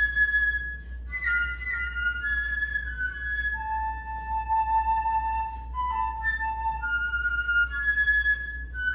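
Solo concert flute playing slow, held notes with a short break for breath about a second in, then a long low sustained note around the middle followed by shorter notes moving up and down. A steady low hum runs beneath.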